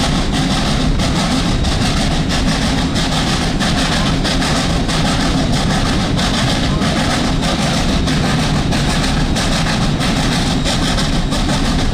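Steady rumble of a moving steam-hauled train heard from aboard a passenger car, with running noise from the wheels on the rails.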